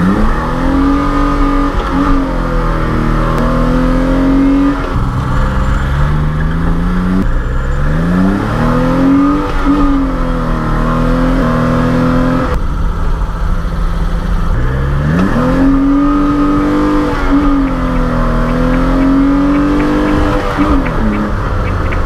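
Car engine running hard at high revs, its pitch climbing, holding, then falling several times as the car is driven and the revs rise and drop, over a steady low rumble. It cuts off abruptly at the end.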